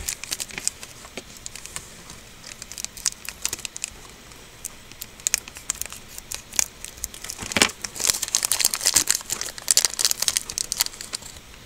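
Small yellow plastic Shopkins blind baggie crinkling and crackling as it is opened by hand, in irregular bursts of sharp crackles that are busiest over the second half.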